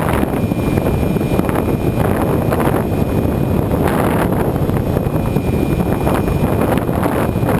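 Wind buffeting the onboard camera's microphone on a Bixler electric RC plane in flight, a loud steady rush of noise, with a faint high whine at times.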